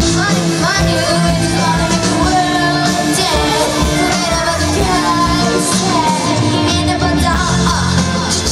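A pop-rock band playing, with a lead voice singing a melody over steady bass notes.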